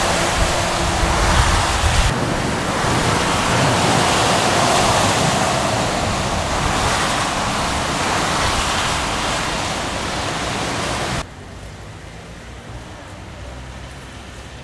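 Motorway traffic in heavy rain: a steady hiss of tyres throwing spray off the wet road, with the low rumble of passing lorries. About eleven seconds in it cuts off suddenly to much quieter street ambience.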